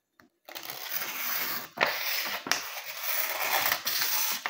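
Kitchen knife blade drawn through the edge of a held sheet of paper in a sharpness test: the paper rustles and crackles as it is cut, starting about half a second in, with sharper crackles a few times along the way.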